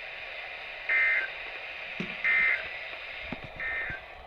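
Emergency Alert System SAME data tones from a NOAA Weather Radio receiver: three short, identical buzzy bursts about a second apart over radio hiss. Bursts this short are typical of the end-of-message code that closes an alert or test.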